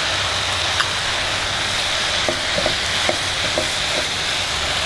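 Chicken and chayote stir-fry sizzling steadily in a pan. From about two seconds in, a wooden spatula tossing the food adds light clicks and scrapes over the sizzle.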